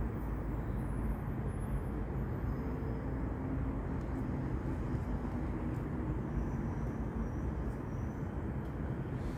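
Steady low outdoor background rumble with a faint, even hum, consistent with distant road traffic.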